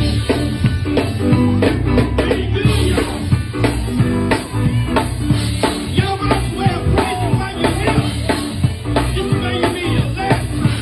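Live band playing: a drum kit keeps a steady beat of sharp strokes over sustained low bass notes, with keyboard and other pitched parts on top.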